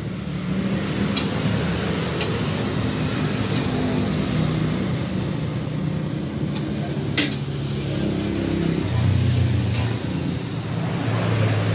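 Yamaha Jupiter Z single-cylinder four-stroke motorcycle engine running steadily at idle through a racing exhaust, growing a little louder twice in the last few seconds. A single sharp clack about seven seconds in.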